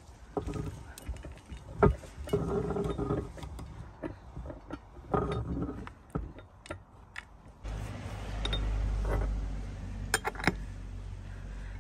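Hand-crank metal meat grinder being taken apart and emptied: irregular metal clinks and scraping as the plate and knife are handled and chocolate crumbs are scraped out of the barrel. About 8 s in, a low steady rumble sets in under a few more clinks.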